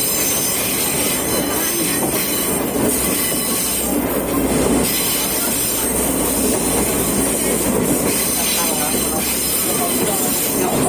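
Sagano Romantic Train in motion, heard from aboard: the steady running noise of the carriages, with wheels grinding and squealing on the rails over a constant rumble.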